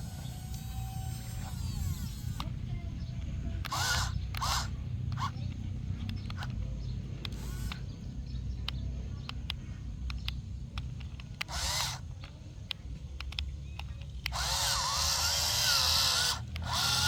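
Mini toy excavator's small motor whining in short bursts, the longest about two seconds near the end, over a steady low rumble.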